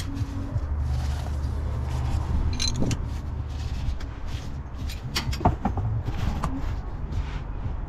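Scattered metallic clicks and knocks from hand work with tools on the underside of a van near the gearbox, several close together in the middle, over a steady low hum.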